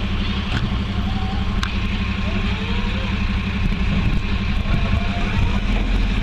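A vehicle engine running steadily with a low drone, with a few faint clicks over it.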